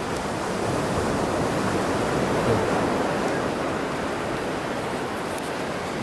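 Steady rushing outdoor noise, swelling slightly a couple of seconds in, with no distinct tones or knocks.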